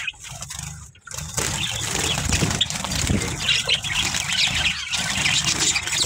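Java sparrows chirping and fluttering, with close rustling and handling noise as the phone is pushed into a straw-lined clay nest pot. Quiet for about the first second, then busy and irregular.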